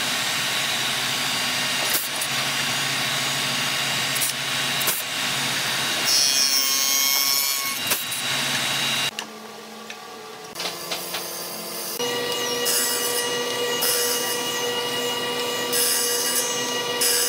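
Spindle moulder (wood shaper) running, with its spinning cutter head shaping small wooden pieces pushed past it in a jig. The cut is loudest for about three seconds near the middle. After a short break a different woodworking machine runs at a steady pitch, with short hissing bursts about every second and a half.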